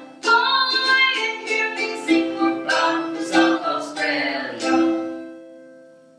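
Music: a run of chords strummed on a small string instrument, ending on a final chord that rings and fades away.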